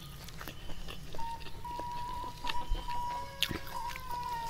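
Close-miked eating sounds: scattered clicks and crunches of hand-eating and chewing rice with raw leafy vegetables, over a steady high thin tone in the background.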